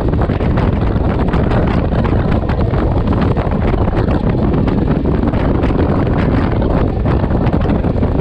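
Steady wind rush buffeting the microphone of a camera on a moving motorcycle.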